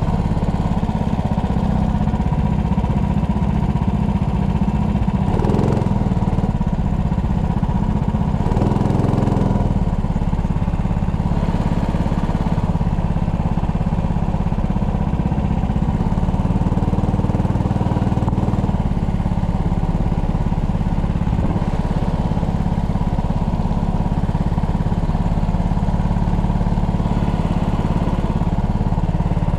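Sprint go-kart engine running steadily under throttle, its pitch shifting a little with the revs.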